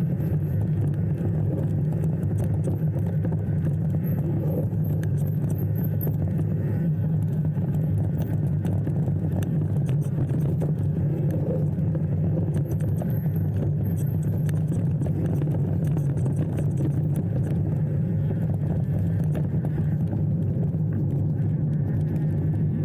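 Steady low rumble of a motor vehicle running at an even speed, with no change in pitch or level.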